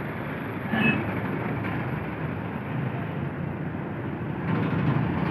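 Diesel bus engine running steadily amid traffic noise, a little louder near the end.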